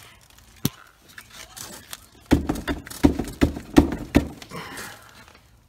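A 17 mm box wrench being worked on the oil drain bolt of a Yamaha Raptor 660 ATV to break it loose: a single click, then a run of six sharp knocks about a third of a second apart.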